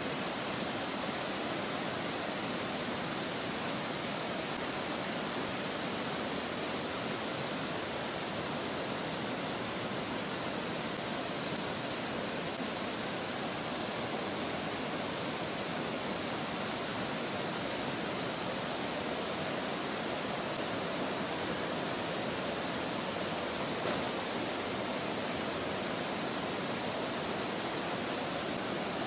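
Flooded river after heavy rain, brown white water rushing over boulders and down a waterfall: a steady, even rush of water.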